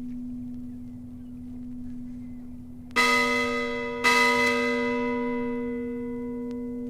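A large bell struck twice, about a second apart, each stroke ringing out with many overtones and fading slowly over a steady low hum that carries through.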